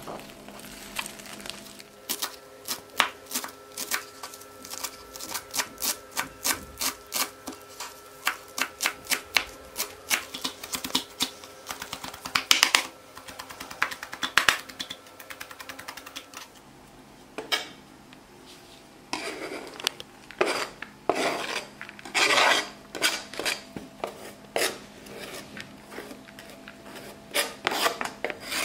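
Kitchen knife chopping a bunch of fresh herbs on a wooden cutting board: a steady run of quick, sharp cuts, a few a second. After a short pause come a few louder, longer strokes near the end.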